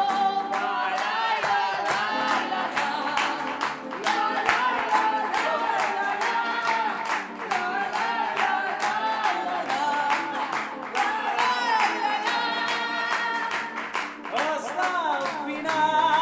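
A woman and a man singing a lively cabaret song together live on stage, over a steady beat of sharp clap-like strokes.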